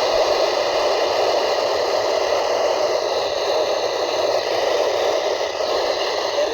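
Steady static hiss from a weather radio receiver, with no voice getting through: the sound of a weak or lost signal.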